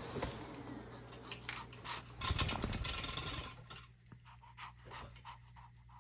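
The tail of a blow dryer fading out, then a couple of seconds of scratchy rustling and scraping, then a small dog panting softly and quickly, about three pants a second.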